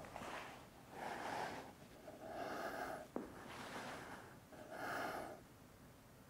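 A person's breathing, four audible breaths each lasting under a second, with a single sharp click about three seconds in.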